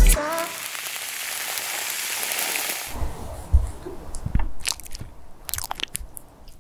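A craft knife scrapes and shaves a colored pencil's tip with a steady, dry hiss that lasts about three seconds. Then a lipstick is pressed down hard onto a surface and crushed: a soft thud, then a run of sticky crackles and clicks as the wax squashes flat.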